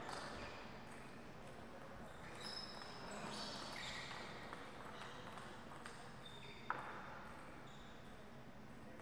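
Sports shoes squeaking briefly on the court floor a few times as players walk, with one sharp tap about two-thirds of the way in.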